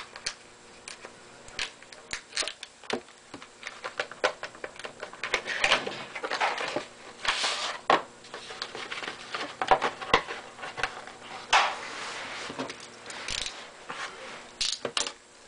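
Hands opening a sealed box of hockey cards: a run of sharp clicks and taps, then crinkly rustling and tearing of the packaging in two spells, about five seconds in and again about twelve seconds in.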